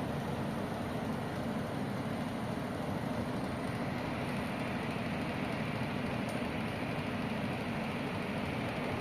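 Cadence electric fan running, a steady whir of motor and blade with air rushing, even and unchanging throughout.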